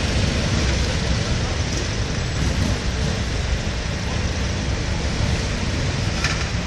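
Large touring motorcycles running, a steady low engine rumble, mixed with street traffic noise.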